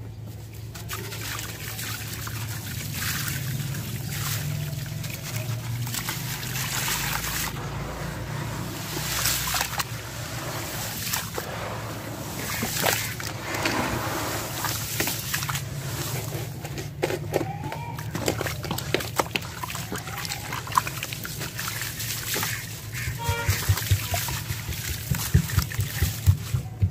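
Hands sloshing and swishing through a tub of muddy water, scooping wet sand and grit and letting it fall back in with splashes and trickling. In the last few seconds it turns into a run of quick, repeated splashes.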